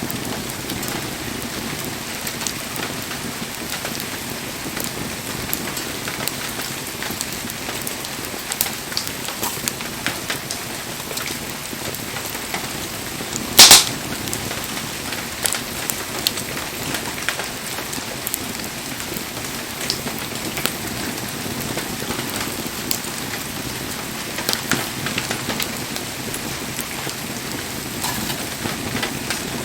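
Wood fire burning with a steady hiss, scattered crackles and one loud pop about halfway through.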